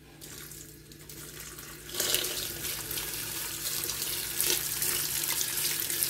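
Kitchen tap water pouring onto cooked spaghetti in a stainless-steel colander, rinsing the drained pasta. The flow gets much louder about two seconds in and then runs steadily.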